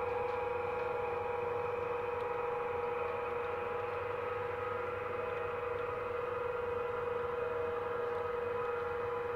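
OO gauge model train running on the layout: a steady hum with several fixed tones, unchanging throughout.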